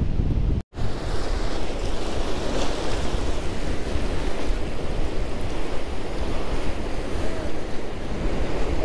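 Surf breaking and seawater washing and swirling between mussel-covered rocks, with wind buffeting the microphone. The sound cuts out for an instant just under a second in, then the washing water carries on steadily.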